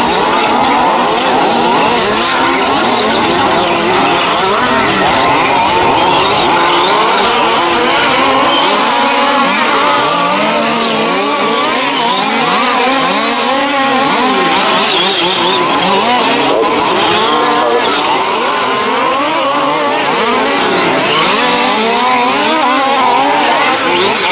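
A pack of 1:5-scale petrol RC off-road trucks racing: several small two-stroke engines revving up and down over one another, their pitch constantly rising and falling.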